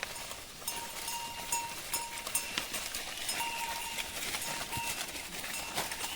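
A herd of goats on the move, with many short clicks and knocks, along with a steady high tone that comes and goes in short stretches.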